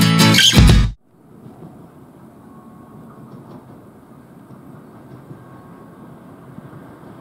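Guitar music cuts off about a second in. After it, a train's steady low rumble with a faint hum.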